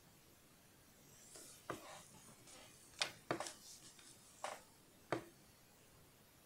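Faint handling noise while painting: a handful of short taps and scrapes from a fine paintbrush and latex-gloved hands on paper, scattered between about one and five seconds in.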